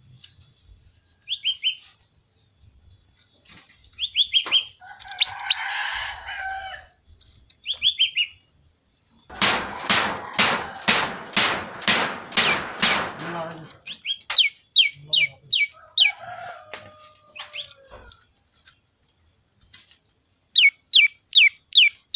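Prenjak lumut calling 'ceng-ceng': short bursts of three to six quick, high, downward-slurred notes, repeated several times. Around the middle comes a louder, harsh run of about a dozen rapid strokes.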